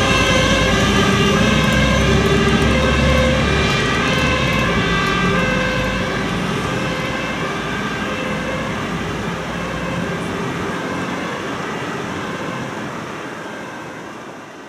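An emergency vehicle's two-tone siren, alternating steadily between two notes over engine and road noise, growing fainter as the vehicle drives away and fading out near the end.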